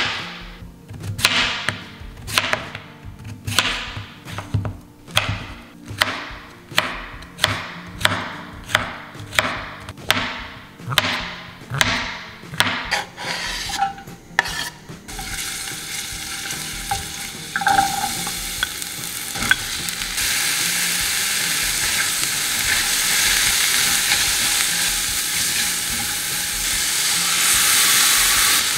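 A kitchen utensil working in a bowl or pan, with regular strokes about two a second. About halfway through, the strokes give way to a steady sizzle of food frying in a hot pan, which grows louder a few seconds later.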